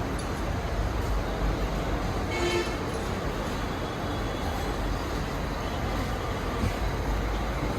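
Steady background noise of road traffic, with one short vehicle horn toot about two and a half seconds in.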